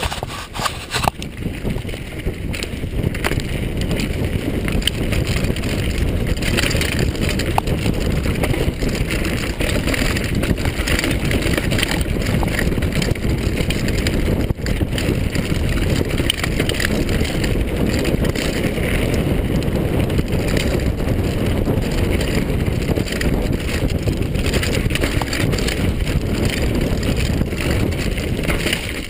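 Wind rushing over the microphone of a handlebar-mounted camera, mixed with the steady rumble and rattle of a downhill mountain bike riding fast over a rough dirt forest trail, with scattered sharp knocks from roots and rocks.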